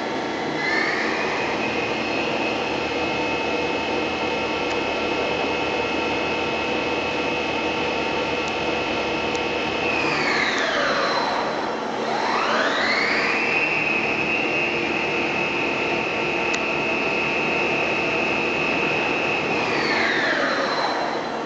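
TOS Varnsdorf WH 105 CNC horizontal boring mill running: its electric drive whine climbs quickly to a high steady pitch and holds there. It then slides down to a low pitch and straight back up, holds again, and winds down near the end, over a constant machine hum. This is two cycles of the drive accelerating, running at speed and braking.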